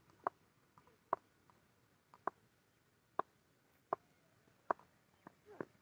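A series of faint, sharp clicks or knocks, roughly one a second and unevenly spaced, the sharpest near the end.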